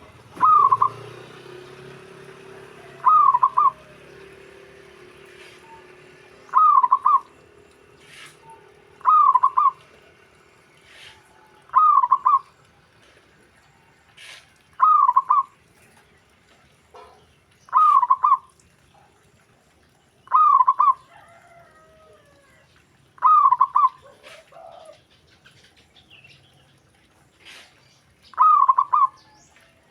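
Zebra dove (perkutut) cooing: about ten short, loud phrases repeated roughly every three seconds, with faint short chirps in the gaps.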